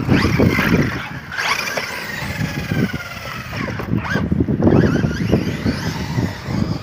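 Electric RC monster trucks driving over grass, their motors whining in pitch glides that rise and fall with the throttle, over a strong low rumble.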